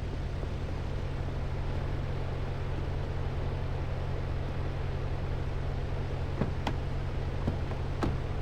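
Steady low mechanical hum over a faint noise, with a few sharp clicks from about six seconds in.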